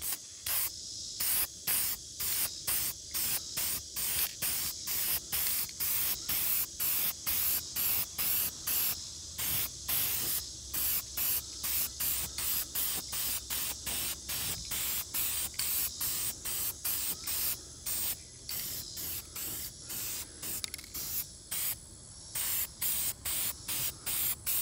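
Aerosol spray paint can hissing as it coats a steel target, the hiss pulsing about twice a second.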